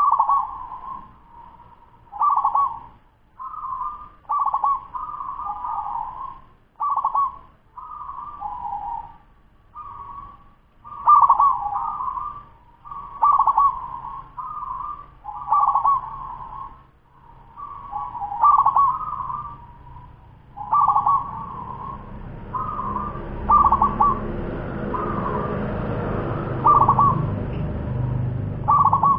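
Zebra dove (perkutut), a ten-month-old local bird, singing its fast rolling coo over and over, about one short phrase a second. From about two-thirds of the way through, a steady low background noise rises under the calls.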